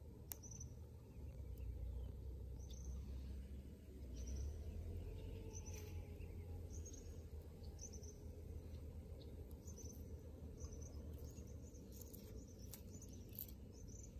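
Rural outdoor ambience: short high chirps repeating every second or so, more often near the end, over a low steady rumble, with a few faint clicks.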